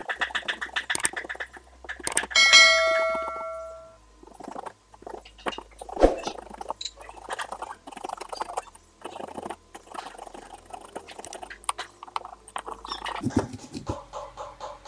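Fresh ginger being rubbed back and forth on a small hand grater over a ceramic bowl: quick, irregular scraping strokes. About two seconds in there is one loud ringing clink that dies away over about a second and a half, and a sharp knock comes about six seconds in.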